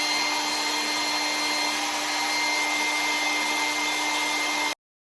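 Hair dryer blowing steadily with a constant hum, drying lace-wig glue; it cuts off abruptly near the end.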